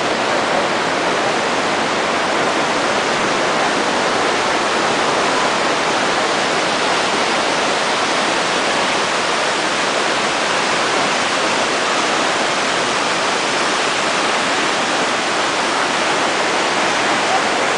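Steady, loud rush of the Iguazu Falls, a huge volume of water pouring down.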